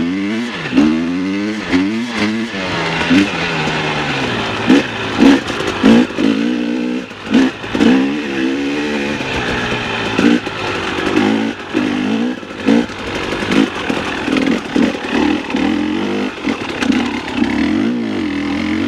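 Dirt bike engine revving up and falling back over and over as it is ridden, with frequent sharp knocks.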